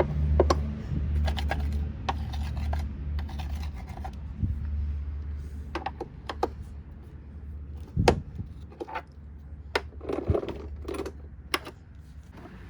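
Hands working on a plastic vacuum cleaner during disassembly: scattered clicks, taps and scrapes of plastic parts and small hardware, with one sharper knock about eight seconds in. A low hum underneath fades over the first few seconds.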